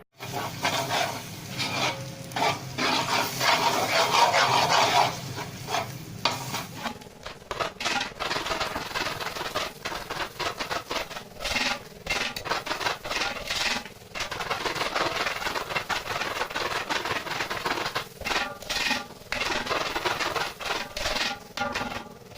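Ladle stirring and scraping food around a cooking pan in irregular strokes, with food sizzling in the pan.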